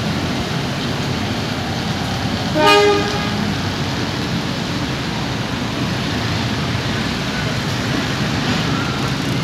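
Steady road traffic with motorcycles and cars passing, and one short horn toot about two and a half seconds in.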